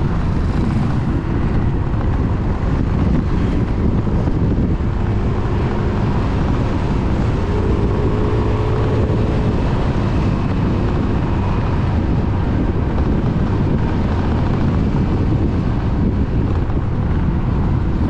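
Steady rumble of a motorbike under way, heard through a bike-mounted action camera: wind buffeting the microphone mixed with engine and road noise.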